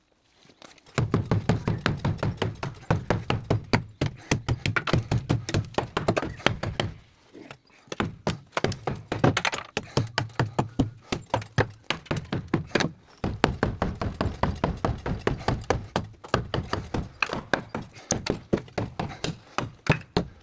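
Hammer blows smashing out rotten timber: rapid strikes, several a second, in three long runs broken by short pauses about seven and thirteen seconds in.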